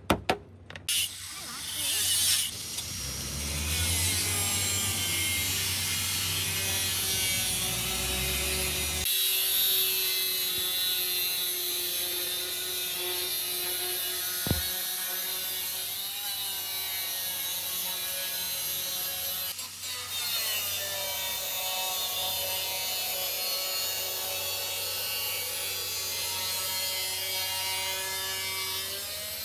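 Electric angle grinder running against the rusted steel of a car's lower door sill, grinding the rust off: a steady motor whine over a gritty rasp. The grinding breaks off briefly twice in the middle.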